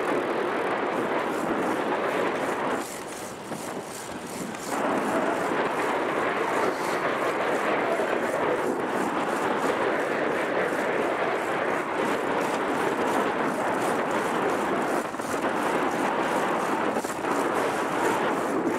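Steady rush of moving air over the camera microphone while riding a bicycle along an asphalt road, in a light wind. It dips briefly about three seconds in.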